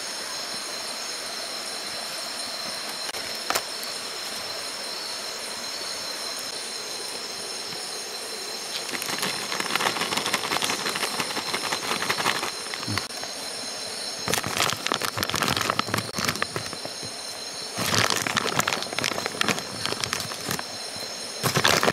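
Wood cooking fire crackling under a steaming pot, in loud bursts of dense clicking from about halfway through and again near the end. Behind it, a steady night chorus of insects holds several high, even tones.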